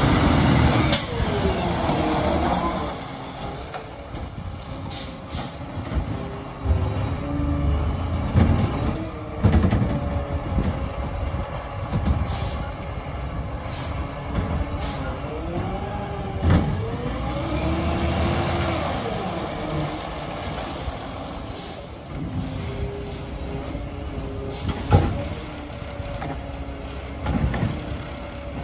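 Peterbilt 520 garbage truck with a McNeilus ZR side-loader body driving slowly, its engine note rising and falling as it moves off and slows, with air-brake hisses. A sharp knock stands out about 25 seconds in.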